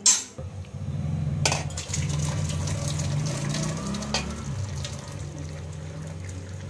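Hot water and boiled macaroni poured from a steel pot through a steel colander into a stainless steel sink: a steady splashing stream as the pasta is drained. There is a sharp clank at the start and another about a second and a half in.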